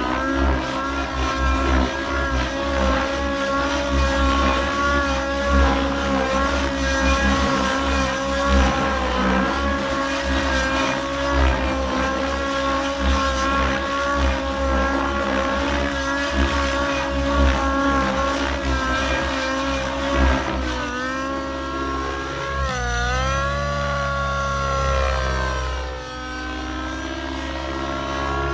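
XLPower Specter 700 Nitro RC helicopter's nitro (glow) engine and rotor running hard in flight: a steady high engine note that wavers slightly, then swoops down and back up in pitch several times near the end as the helicopter manoeuvres.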